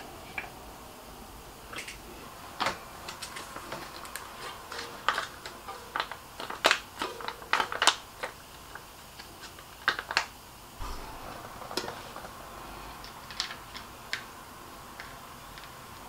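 Irregular small clicks, taps and rustles of hands working on bicycle parts: a hex key on a pedal, then a small packet handled and a part fitted at the wheel rim.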